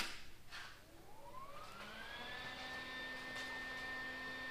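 A click as a welding machine is switched on, then its cooling fan spins up with a rising whine that levels off about two seconds in into a steady hum.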